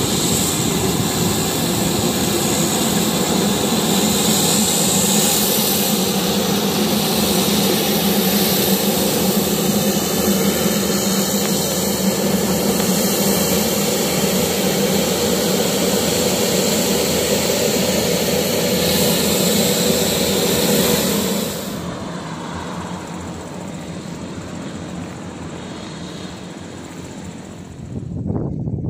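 Twin turboprop engines of a PTDI N219 running as it taxis: a steady, loud turbine whine over propeller drone. About 22 seconds in the sound drops abruptly to a quieter, duller engine noise.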